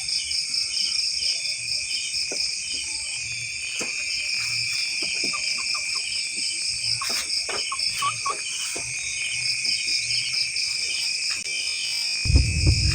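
Night chorus of crickets and other insects: a steady high trill layered with regular chirps, with a few faint clicks in the middle. Bass-heavy music comes in near the end.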